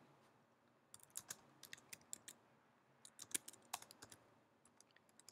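Faint computer-keyboard typing: two short runs of keystrokes, one about a second in and another about three seconds in.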